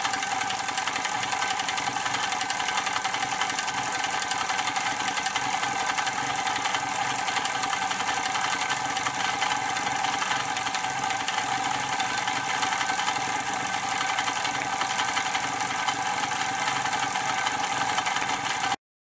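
Pre-war Mamod Minor 1 toy steam engine running steadily and smoothly: a fast, even chuffing with a constant steam hiss. It cuts off abruptly near the end.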